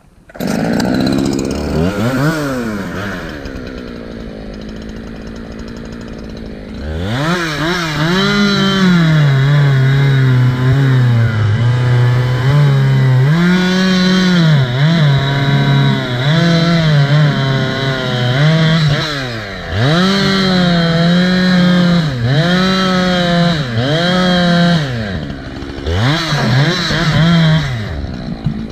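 Two-stroke chainsaw starting up and revving, idling for a few seconds, then from about seven seconds in running at full throttle while cutting into a tree trunk, its pitch sagging under load and recovering over and over, with brief drops off throttle near the end.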